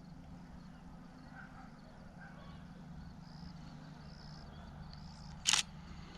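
Quiet outdoor ambience with a steady low hum and a few faint high-pitched chirps, broken by one sharp, brief click about five and a half seconds in.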